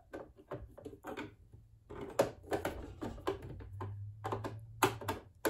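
Irregular light clicks and taps of a Phillips screwdriver and hands working a screw out of a Brother sewing machine's plastic housing.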